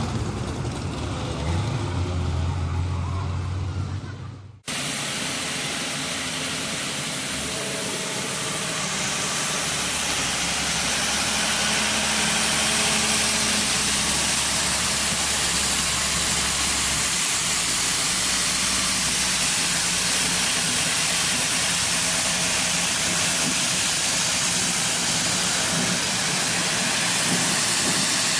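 A hillclimb race car's engine running and fading away over the first few seconds, then cut off abruptly. After that a long steady hiss with a faint low hum.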